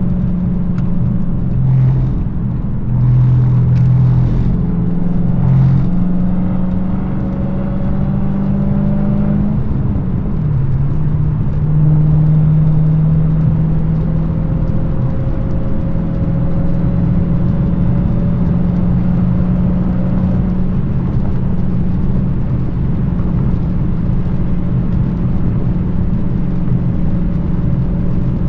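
Dodge Challenger SRT Hellcat's supercharged Hemi V8 with its exhaust opened up by an active-exhaust delete, running on light throttle under way. A few short cracks and surges come in the first six seconds, then the revs climb, drop sharply about ten seconds in and recover, and it settles into a steady cruise.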